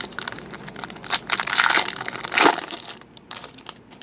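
Crinkly plastic rustling and crumpling from handling trading-card packs, like a foil pack wrapper being crushed. The rustle is loudest from about one to two and a half seconds in, then dies down to a few light ticks.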